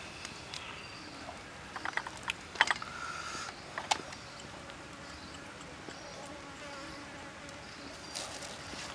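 Insects buzzing and chirping in the background, with a few sharp clicks and knocks from handling: pork ribs being laid on a wooden chopping block about two seconds in, and a small ceramic cup being picked up about four seconds in.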